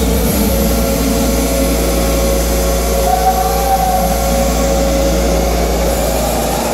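Loud hardcore electronic music played through a big sound system and caught on a handheld camera's overloaded microphone: a sustained deep bass drone with held synth tones over a wash of noise, and no beat. The bass cuts off near the end.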